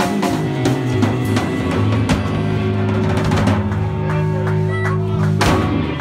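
Live band music: a drum kit playing beats with cymbal hits over sustained low notes, with a loud crash about five and a half seconds in.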